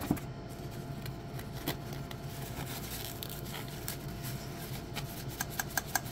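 Packaging being handled: a foam wrap rustling and a metal mounting bracket lightly clicking against the packaging tray, with a quick run of small clicks near the end, over a low steady hum.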